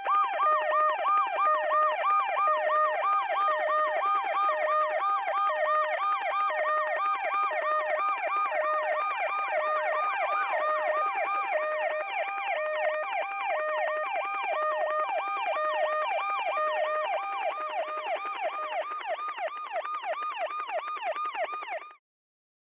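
Emergency vehicle sirens: a fast rising-and-falling yelp whooping over a two-tone hi-lo alternation, both running steadily together, then cutting off suddenly just before the end.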